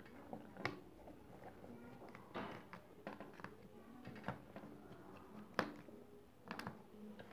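Faint, irregular clicks and taps of a Phillips screwdriver and small screws being worked out of a smartphone's frame, the loudest about halfway through.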